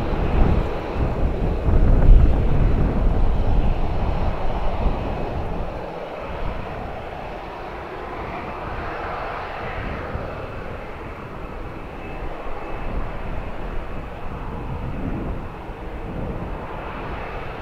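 Boeing 737-700's CFM56 jet engines running at taxi power as the airliner rolls along the taxiway. A steady roar with a faint high whine, loudest in the first few seconds and easing off after that.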